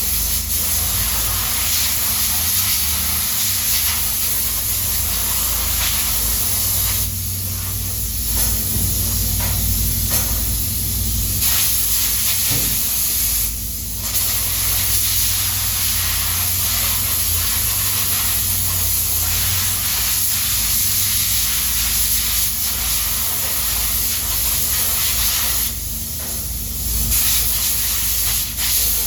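Steady loud hiss, like spraying air or liquid, over a low steady hum, easing off briefly a few times.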